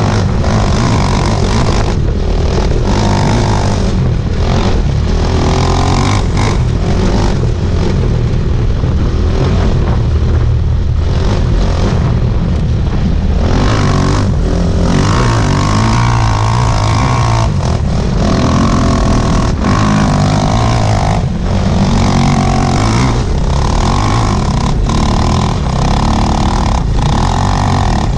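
Sidecar outfit's motorcycle engine running hard over rough grass, the throttle briefly shut and reopened every second or two.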